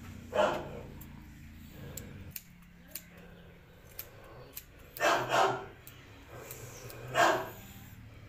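A dog barking: a single bark, then a pair of quick barks and one more, with faint sharp ticks in between.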